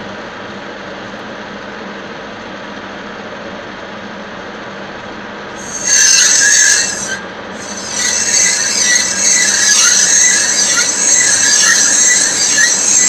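Lathe running steadily, then about six seconds in the cutting tool bites into the spinning brass ring and squeals loudly and high-pitched. The squeal breaks off briefly and then resumes.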